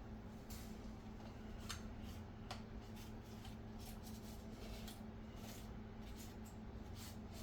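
Faint, scattered clicks and scrapes of the air fryer's plastic door parts and glass panel being handled and fitted together, over a steady low hum.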